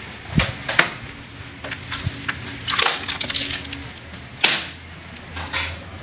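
PVC ceiling panels being handled: a few sharp knocks and a clattering scrape of plastic strips against each other and the floor, the loudest knock about four and a half seconds in.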